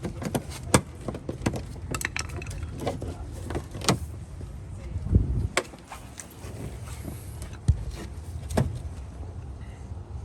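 Scattered clicks, taps and knocks of hands prying back and working behind a car's plastic wheel-well liner, with a heavier low thump about five seconds in, over a low rumble.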